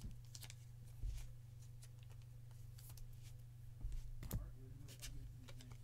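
Trading cards and plastic card holders being handled: a few light, irregular clicks and rustles over a steady low hum.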